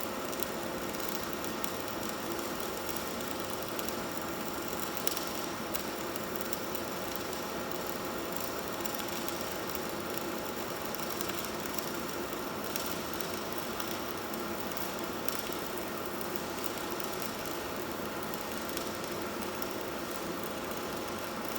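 Electric arc welding on a pipe: the arc crackles steadily with many irregular sharp clicks, over a faint steady hum.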